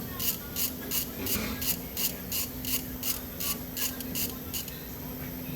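Repeated rasping strokes of a hand tool working on the car, about three a second, stopping about four and a half seconds in, over a steady low hum.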